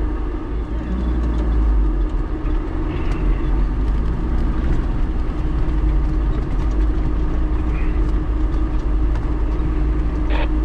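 Off-road vehicle driving slowly over a rough dirt track, heard from inside the cab: a steady engine drone over a heavy low rumble, with a short sharp knock near the end.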